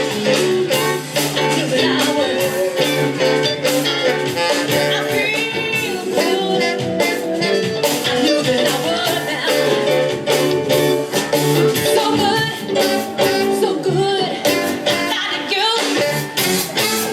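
Motown-style soul band playing, with singing and guitar over a steady beat.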